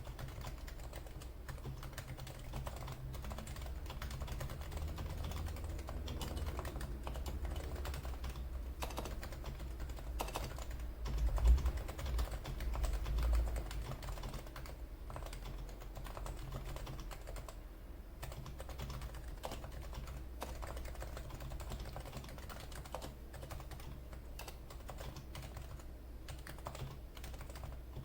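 Continuous typing on a Realforce R2 PFU Limited Edition keyboard with silenced 45 g Topre electro-capacitive switches, giving quiet, muted keystrokes over a steady low hum. A dull low thump stands out about halfway through.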